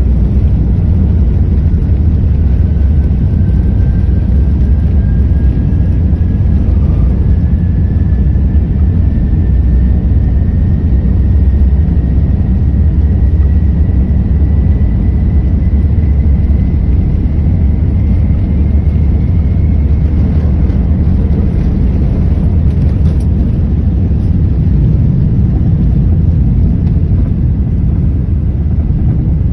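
Cabin noise of an Airbus A380 on its takeoff roll: the steady, loud low rumble of its four engines at takeoff power and the wheels on the runway, with a thin whine slowly rising in pitch over the first twenty seconds. The noise drops a little near the end.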